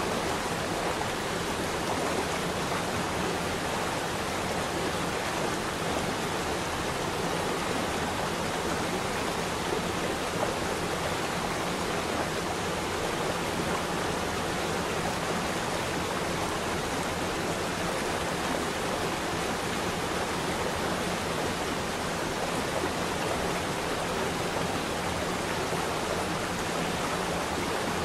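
Steady, unbroken rush of running water, like a stream.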